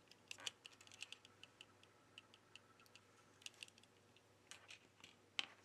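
Faint, quick light clicks and ticks of a plastic pry tool and a Sony Xperia Z3 Compact's motherboard being handled as the board is lifted out of the phone's frame, with a sharper click near the end.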